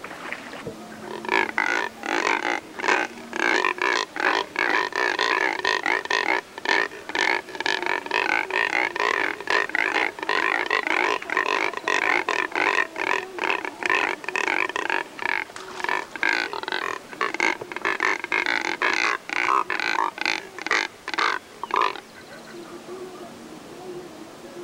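A group of Neotropic Cormorants calling together: loud, harsh grunting calls in quick, overlapping series. The calling starts about a second in, runs on without a break, and falls away near the end.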